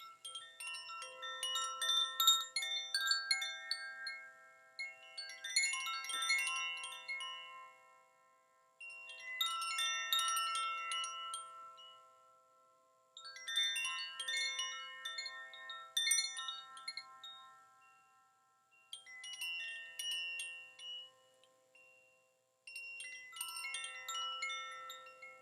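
Zaphir 'Twilight' chimes, a set of tuned metal rods pitched to E, G and B with a C, played in about six short runs of ringing notes. Each run fades away before the next begins.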